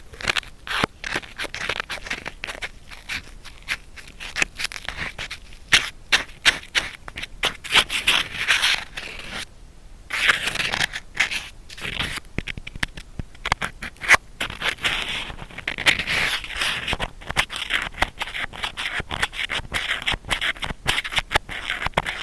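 Ear-cleaning sounds on a binaural microphone's ear: close, scratchy scraping and rubbing with many small clicks, easing off briefly about ten seconds in.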